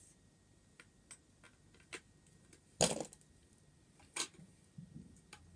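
Scattered light clicks and knocks of things being moved about by hand, with a louder knock about three seconds in and another about a second later.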